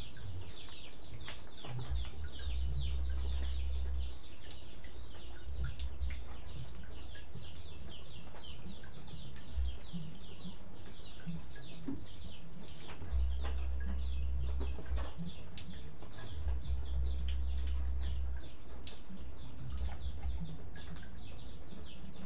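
Birds chirping steadily, a quick unbroken run of short, high, falling notes, over a low rumble that swells and fades a few times, with a few light knocks.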